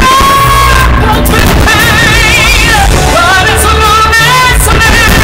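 Loud music with a singer holding long notes with vibrato over a steady bass line.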